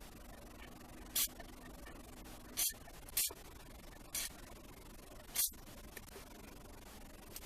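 WD-40 aerosol can giving five short squirts of spray onto the dry gear mechanism of an opened ratchet, each a brief hiss.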